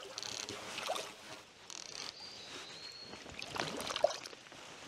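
Shallow creek water splashing and sloshing as a small brook trout is brought in and landed by hand, the splashing strongest a little before the end.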